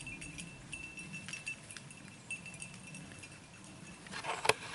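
Faint, on-and-off tinkling of a small bell or jingling metal, with light clicks and a low rustle.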